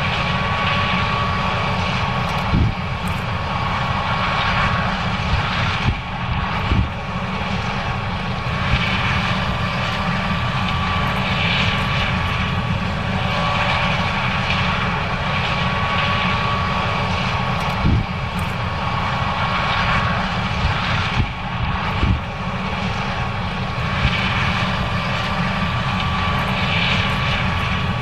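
John Deere S790 combine harvester running steadily under load, a dense low hum with a faint steady whine, broken by a few short knocks.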